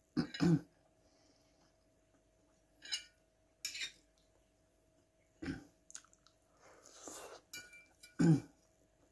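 Metal fork clinking and scraping on a plate, with close-miked chewing in between: a handful of short, separate sounds, the loudest just after the start and near the end.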